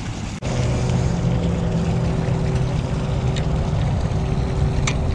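Steady low mechanical hum with a few steady tones in it, starting after a brief dropout about half a second in, with a couple of faint ticks later on.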